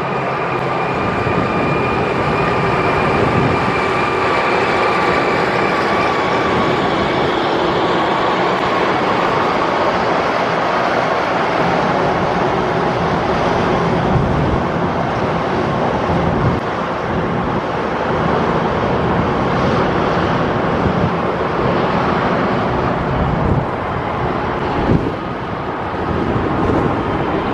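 Steady, loud vehicle noise, with a faint high whine that fades out over the first ten seconds or so.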